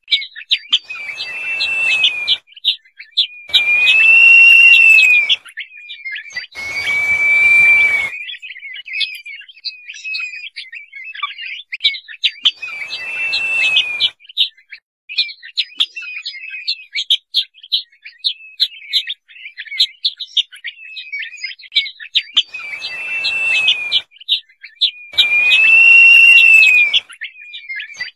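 Crested partridge (roul-roul) whistling its call: long whistled notes that rise and fall, repeated in groups of two or three with a long pause in the middle. Quick chirping notes run underneath throughout.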